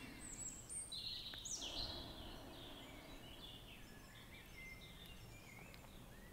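Faint birdsong: a string of short chirps and whistles, some gliding downward, over a soft steady background hiss.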